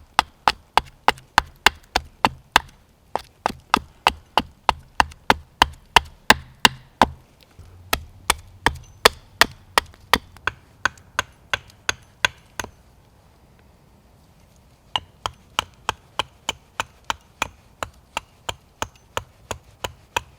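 Rapid, regular chopping strikes into a green birch spoon blank, about two to three a second, roughing out the spoon's shape. They stop for about two seconds a little past halfway, then resume.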